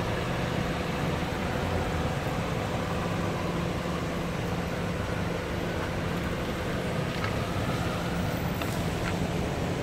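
Car engine idling as the car creeps slowly: a steady low hum.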